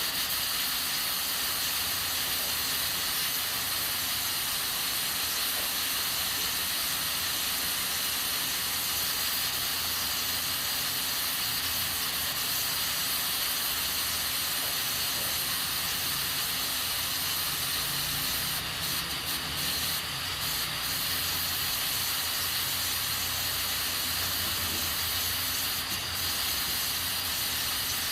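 Aluminium pressure cooker cooking beans, steam hissing steadily from its valve, with a few brief breaks in the hiss in the last third.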